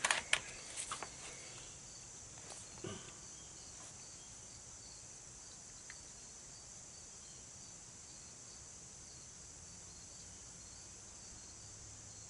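Faint, steady chirping of insects, with a few light clicks and knocks in the first three seconds.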